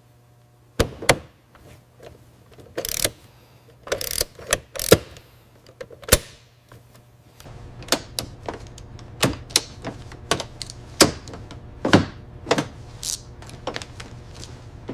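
Assembly-work clicks and clacks: sharp, separate mechanical clicks and knocks at irregular spacing, sparse at first and coming about one or two a second in the second half, over a low steady hum.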